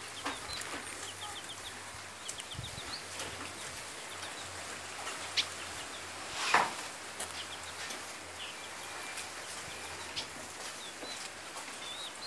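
Chickens clucking, with short runs of rapid high chirps now and then and one loud sudden sound about six and a half seconds in.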